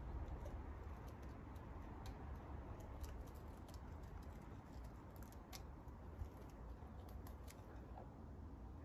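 Garden-railway model train rolling slowly past, its wheels giving faint, irregular clicks and ticks on the track over a low steady rumble.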